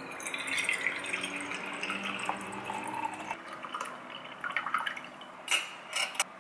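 Coconut water poured from a bottle into a glass tumbler, a steady splashing pour that stops about three and a half seconds in. Then a few sharp clinks of a metal fork and spoon set down on a ceramic plate, the loudest near the end.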